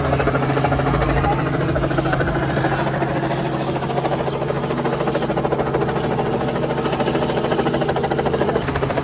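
Helicopter running steadily, its rotor blades beating in a fast, even pulse over a constant low hum.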